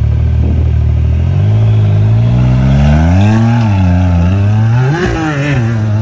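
Side-by-side UTV engine running steadily, then revving up and down several times under load as the machine climbs a steep, rutted dirt gully.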